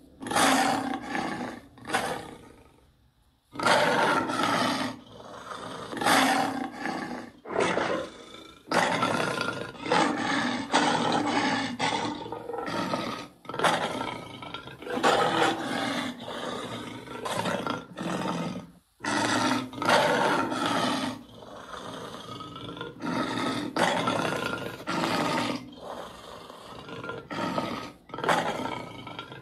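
Werewolf creature roars and growls, one after another, each lasting a second or two with short breaks between them.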